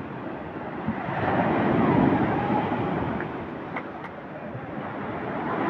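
Small sea waves washing in over a rocky shore and swirling around the rocks, the surf swelling about two seconds in, easing off and building again near the end.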